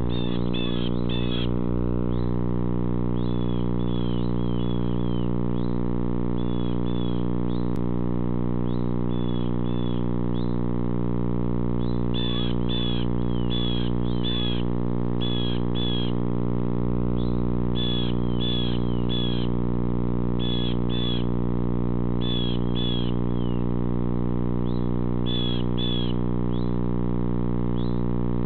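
Small birds chirping outside the owl box in short high notes, often in quick clusters of two to four, repeating every second or two. Under them runs a steady electrical hum picked up by the box's camera microphone.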